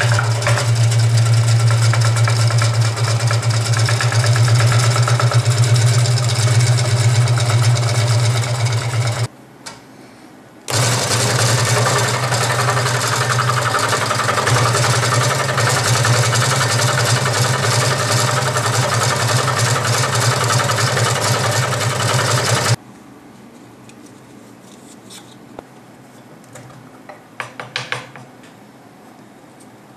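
Scheppach scroll saw running and cutting through a wooden block, a steady hum with a hiss of sawing. It stops about a third of the way in, starts again a second and a half later, and cuts off about three quarters of the way through, followed by a few light clicks.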